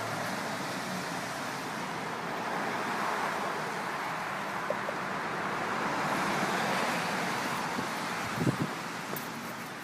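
Traffic noise on a wet road: a steady tyre hiss that swells and fades as a car passes, with a couple of short low knocks near the end.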